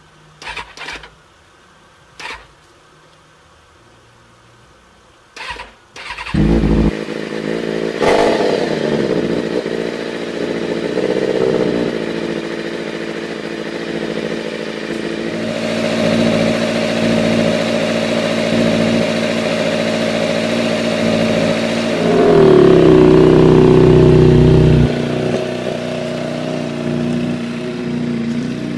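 A 2006 Kawasaki ZZR600's inline-four engine, jump-started because its battery is bad. After a few brief sounds, the engine catches about six seconds in and settles into a steady idle with a quick blip of revs. About two-thirds through it is revved louder and higher for a few seconds, then drops back.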